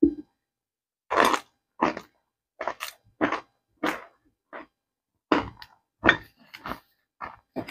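Lumps of compacted cornstarch crunching, about a dozen short, sharp crunches at an uneven pace.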